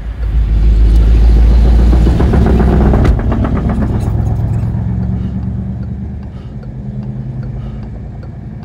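Car engine and road noise heard from inside the cabin: a loud low rumble for about the first three seconds, then a steadier engine hum that slowly fades.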